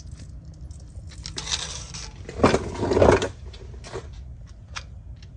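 Two short hisses from an aerosol can of penetrating oil sprayed onto the exhaust muffler hangers, the second louder and longer, with small clicks and clinks of handling around them.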